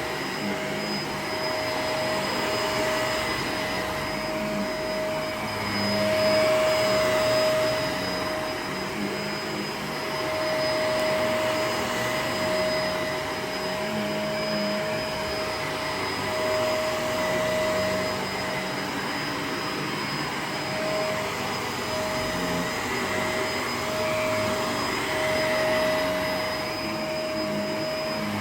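Vacuum cleaner running steadily with a constant motor whine, its loudness swelling and dipping a little every few seconds.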